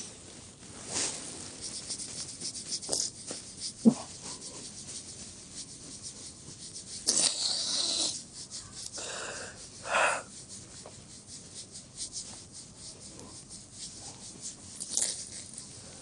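A man crying quietly: irregular sniffs and shaky breaths, with a longer breathy sob about seven seconds in and another about ten seconds in.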